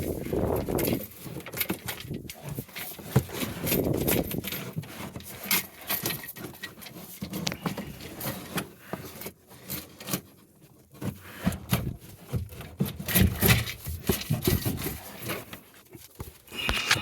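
Drain cable being worked down a sewer cleanout tee: irregular knocks, clicks and scraping of the cable and fittings against the pipe, with no motor running.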